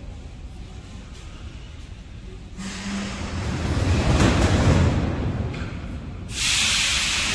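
Metro train standing at an underground station platform with its doors open. A low rumble builds a few seconds in, then a loud hiss starts suddenly near the end.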